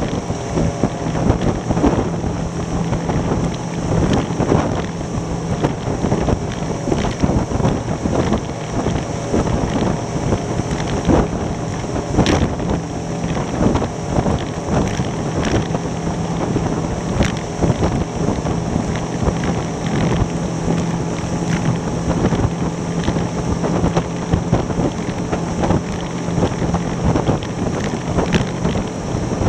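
3D Tender Nividic rigid inflatable boat planing at about 30 mph: steady outboard engine drone under heavy wind noise on the microphone, with the hull knocking on the chop now and then, once harder about 12 seconds in.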